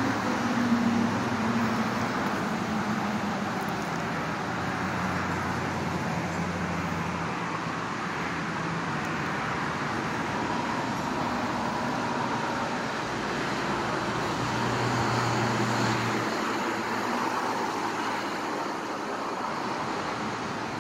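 Road traffic on a boulevard: a steady hiss of tyres with the hum of car engines swelling as vehicles drive past, loudest about three-quarters of the way through.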